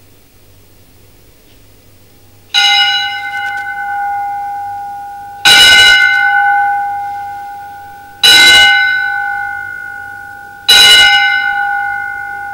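Metal temple bell struck four times, the first a little over two seconds in and then about every three seconds. Each strike rings on with a clear, steady tone that slowly fades, still ringing when the next strike comes.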